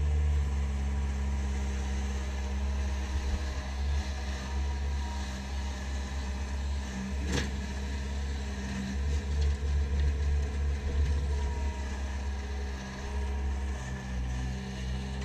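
Bobcat 763 skid-steer loader's diesel engine running under load while loading, its note shifting as it works. One sharp knock sounds about halfway through.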